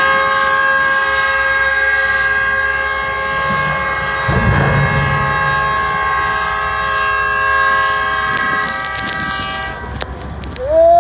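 A ship's horn sounds one long, steady blast during a tug's side launch, cutting off about ten seconds in. About four seconds in, a brief low rumble and splash comes as the hull drops off the launch ways into the water.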